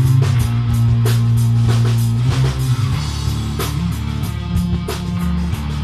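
Rock band playing live: two electric guitars, electric bass and drum kit, with steady drum hits over held guitar and bass chords that change about halfway through.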